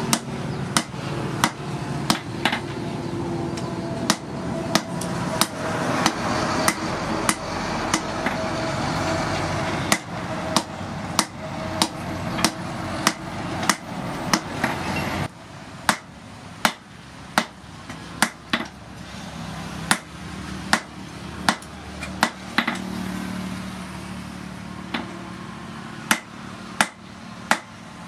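Hand hammer striking red-hot steel rebar held in tongs on a steel-post anvil, hot-forging it. The blows come steadily, about one and a half a second, each a sharp metallic strike. A steady rushing noise under the blows stops suddenly about halfway through.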